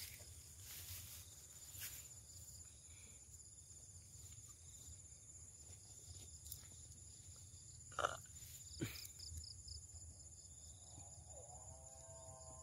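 Faint, steady high-pitched chirring of evening insects over a low rumble of background noise, with two short louder sounds about eight seconds in and a faint wavering tone starting near the end.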